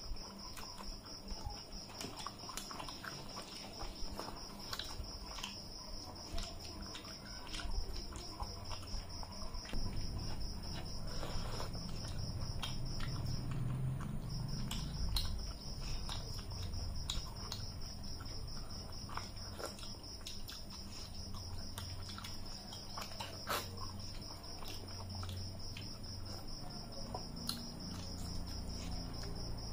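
Close-up eating sounds of two people eating rice and curry by hand: frequent sharp mouth clicks and lip smacks with chewing, and fingers working rice on metal plates. Behind it a cricket trills steadily and high, stopping for about a second near the middle.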